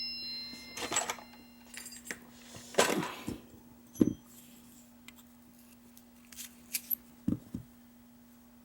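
A Schlage deadbolt lock cylinder being taken apart by hand: scattered small metal clicks and knocks of the plug and pin parts being handled, the sharpest about four seconds in.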